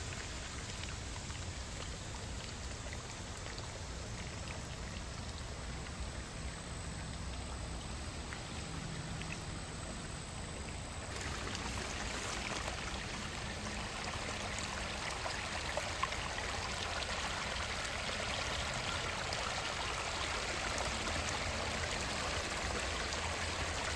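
Pond water rushing out through a freshly dug drainage channel in an earthen dam, a steady sound of flowing water that grows louder and brighter about eleven seconds in.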